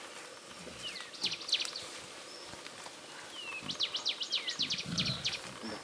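Wild birds calling with quick, high, sweeping chirps. There are a few about a second in, then a rapid run of them from about three to five seconds in, over steady forest background noise.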